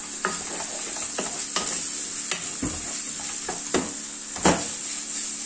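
Sliced onions sizzling in freshly added vegetable oil in a frying pan, starting to sauté: a steady hiss with about six sharp ticks and taps scattered through it.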